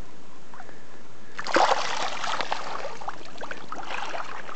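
A rainbow trout splashing at the surface as it kicks free of the hand on release: one sudden loud splash about a second and a half in, then smaller splashes and trickling water.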